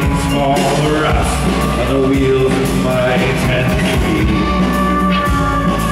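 A live band playing a song, with acoustic guitar and drums.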